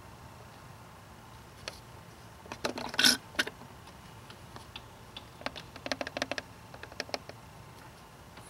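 Scattered small plastic clicks and taps from a fluid-extraction syringe being emptied of power steering fluid into a plastic bottle, with a short louder burst about three seconds in and a quick run of clicks a couple of seconds later.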